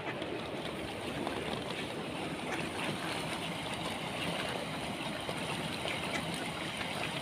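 Steady wash of flowing open water, with faint, scattered short sounds from a crowd of mallards on it.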